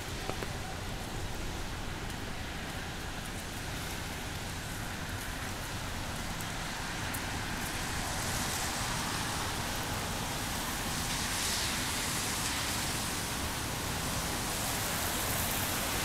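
Traffic on a wet city street in the rain: a steady hiss of rain and tyres on wet road, growing somewhat louder about halfway through.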